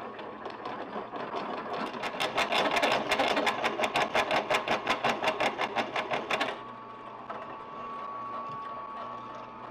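Drill press cutting through 2x2 steel square tubing with a step bit: a grinding cut turns into a fast, even chatter of several pulses a second, which stops abruptly about six and a half seconds in. The drill press motor and spindle keep running freely after that with a steady whine, the bit out of the cut.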